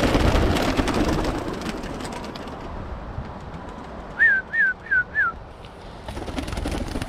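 Birmingham roller pigeons' wings flapping and clattering as the kit bursts out of the kit box, loudest at first and fading over about two seconds. About four seconds in come four short, falling whistled notes.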